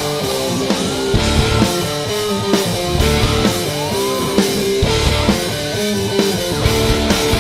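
Rock band instrumental passage: electric guitar and drum kit playing, no vocals.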